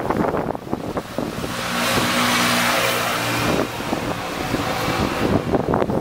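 A car drives past close by, its engine hum and tyre noise swelling for about two seconds, over gusts of wind on the microphone.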